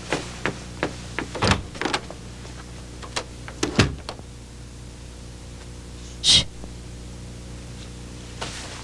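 A door being handled: a run of light knocks and clicks over the first four seconds, then one short sliding scrape about six seconds in, over a steady low hum.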